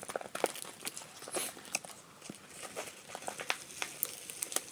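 Scattered, irregular crinkling and crackling as a homemade paper squishy stuffed with plastic bags and wrapped in packing tape is handled.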